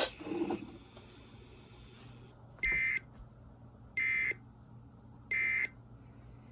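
Three short, high electronic beeps, a little over a second apart.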